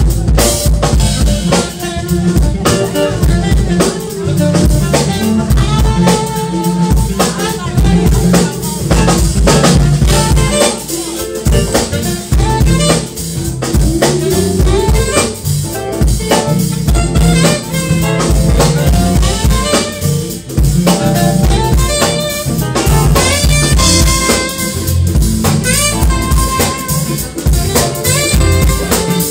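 Live jazz band playing: the drum kit is loudest and keeps a steady groove, with electric bass, electric guitar, keyboards and saxophone playing over it.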